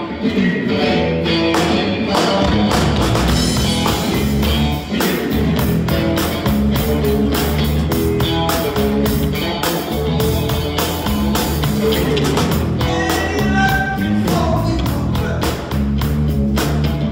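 Rock band playing live, with guitar over a steady drum beat; the bass and drums come in fully about two seconds in.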